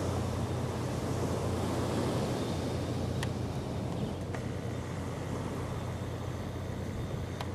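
Steady low rumbling background noise with a faint hiss and a few faint clicks, about three seconds in, a second later and near the end; the crawling snail itself is not heard.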